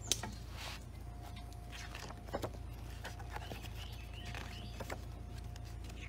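Quiet handling noise: a few soft clicks and knocks over a steady low hum, with a faint thin steady tone from about a second in.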